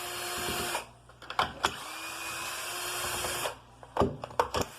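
Power drill whirring in short runs of about one to two seconds, three times, with clicks and knocks of metal parts in between, as screws come out of a Stihl FS 290 brushcutter being taken apart.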